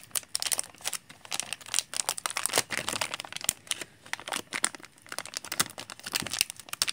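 A hard drive's shiny plastic anti-static bag crinkling and crackling without pause as hands twist and pull at it to get it open. The bag is sealed tight and hard to open.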